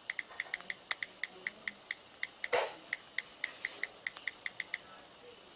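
iPhone on-screen keyboard clicking as a message is typed, about five quick taps a second, with one louder short whoosh about two and a half seconds in.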